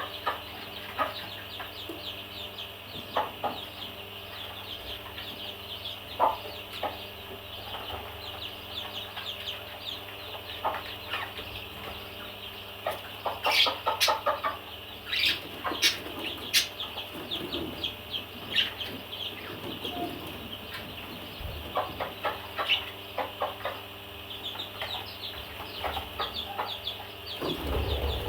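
Parrots chattering: many birds chirping continuously at a high pitch, with louder sharp single calls now and then, busiest around the middle.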